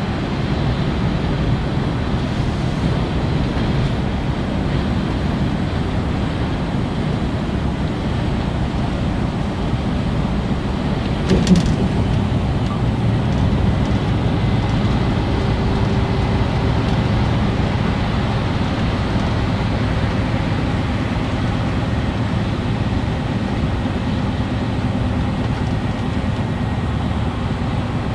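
Steady in-cab running noise of a DAF XG+ truck cruising: engine hum mixed with tyre and road rumble. A short thump about eleven seconds in.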